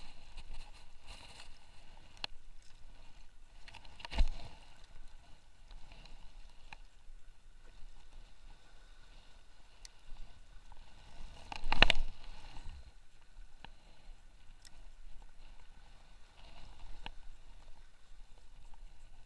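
Water lapping and sloshing gently at the waterline, with two louder bumps, one about four seconds in and a longer one of about a second near the middle.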